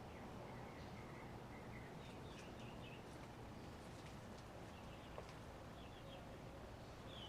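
Small birds chirping faintly over a quiet steady hum, with a single small click about five seconds in.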